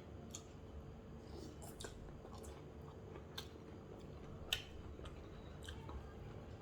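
A person chewing a mouthful of homemade chicken and egg noodles, with soft, sharp mouth clicks scattered every second or so.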